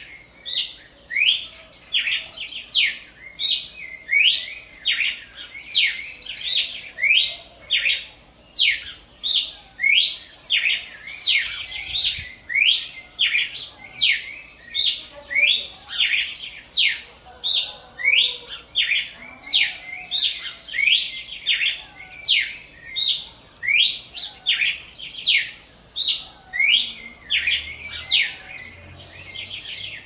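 Red-crested cardinal singing: a continuous run of short, clear phrases, each a quick sweep in pitch, about one and a half a second.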